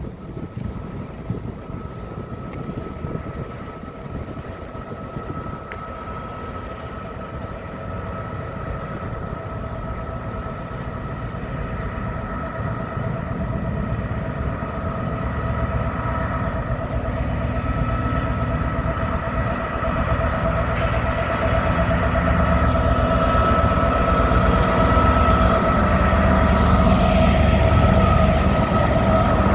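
A train approaching, growing steadily louder, with a steady high whine over a low rumble.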